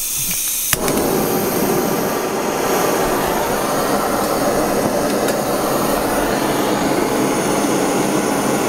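Gas torch hissing on, with a click about three-quarters of a second in, then the flame burning steadily as it heats small silver contacts to melt them together into one bead.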